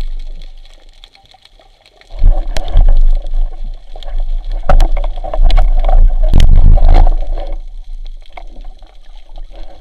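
Water splashing and gurgling, with scattered sharp clicks, loud from about two seconds in and dying down after about seven and a half seconds.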